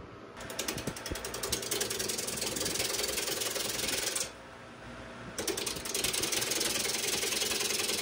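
Bowl gouge cutting a rough maple bowl blank spinning on a wood lathe: a loud scraping hiss with a fast, even ticking. It starts just after the beginning, drops away for about a second around the middle as the cut stops, then resumes.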